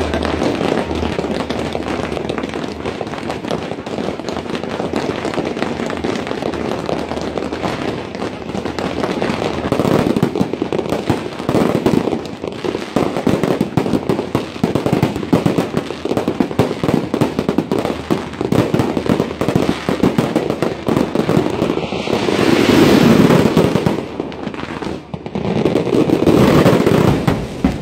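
Aerial fireworks barrage: a continuous, dense crackle of many small bursts from crackling-star shells. Two louder surges come in the last few seconds.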